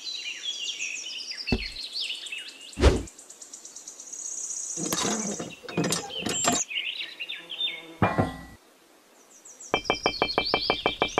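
Edited soundtrack of small high bird chirps with a few sharp knocks in the first half. About a second and a half before the end, a fast, even rattling pulse starts, roughly nine pulses a second.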